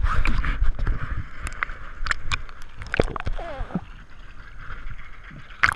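Seawater sloshing and gurgling around a waterproof camera held at the waterline, with scattered splashes, knocks and clicks as the lens dips in and out. There is a loud rumble of handling at the start and a sharp splash near the end.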